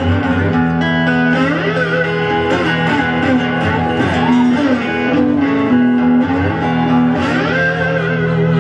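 Electric guitars playing live over steady low bass notes, with many bent and sliding notes.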